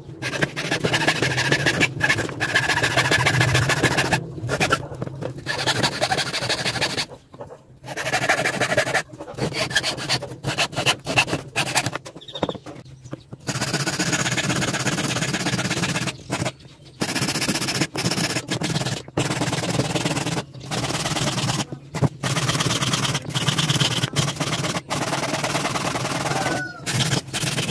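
Hand hacksaw cutting through a wooden branch fork, then a metal file rasping the wood in repeated strokes, with sudden short breaks in the sound.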